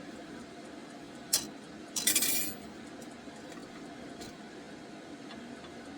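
Steel parts or tools clinking on a workbench: a single sharp metallic tap, then a brief rattling clink of metal about half a second later.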